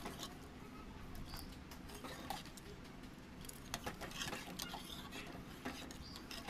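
Metal ladle stirring thick dal palak in an aluminium pressure cooker, with irregular light clinks and scrapes of the ladle against the pot.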